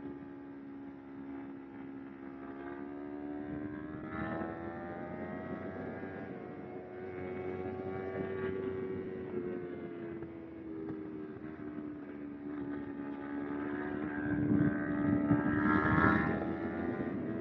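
Kawasaki Ninja 250R's parallel-twin engine running under way, its pitch rising and falling gently with the revs. It gets louder a few seconds before the end, with a rush of noise over it.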